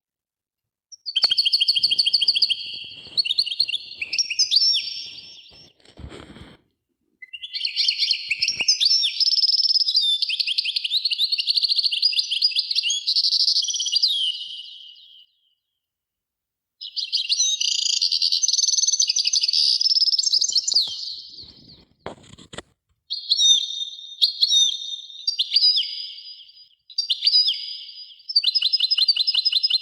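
A small songbird singing long, fast, trilling and warbling phrases of several seconds each, with short breaks between them.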